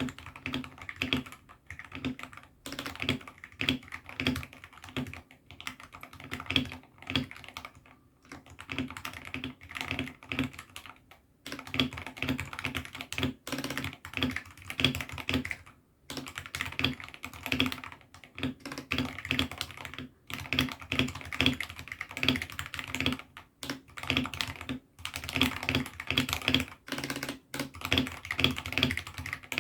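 Mechanical keyboard with AKKO Sakura switches in a hotswappable 68 tester kit being typed on: quick runs of keystrokes broken by short pauses every few seconds.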